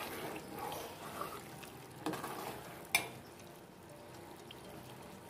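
Steel spoon stirring herbs frying in coconut oil in an aluminium pot, scraping and sloshing through the mix, with a sharp clink of the spoon against the pot about three seconds in. After that the stirring stops and only a quieter steady sizzle of the nearly finished herbal oil is left.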